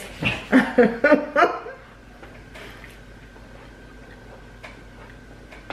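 Girls' and women's voices and laughter for about the first two seconds, then a quiet room with a faint steady hum and a few soft ticks.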